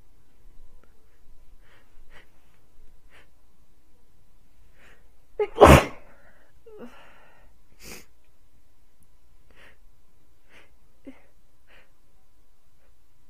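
A person sneezes once, loudly, a little before halfway, after several short catching breaths of a sneeze build-up. Short faint breaths or sniffs follow.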